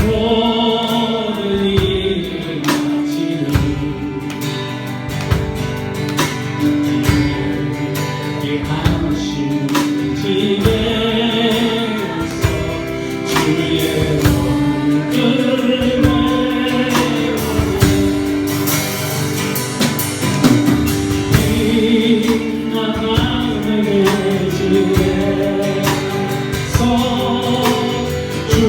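Church praise team and congregation singing a hymn with instrumental accompaniment and a steady beat.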